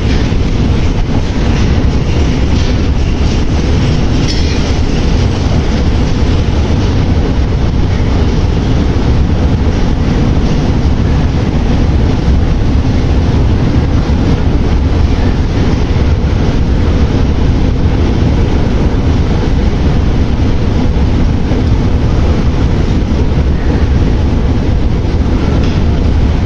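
Moscow metro train running on the rails: a loud, steady rumble with wheel and rail noise that carries on without a break.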